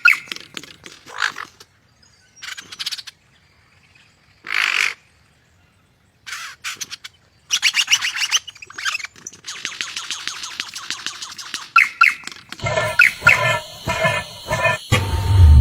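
Birds calling: short harsh calls a second or two apart, then a long run of rapid chattering. Near the end the sound changes, with a low rumble coming in under further calls.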